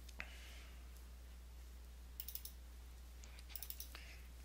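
Faint computer keyboard and mouse clicks: a single click near the start, then two short runs of quick clicks about halfway through and near the end, over a low steady hum.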